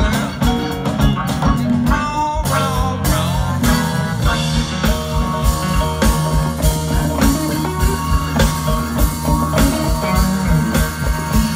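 Live band playing an upbeat blues-rock number with a steady drum beat, heard from the audience.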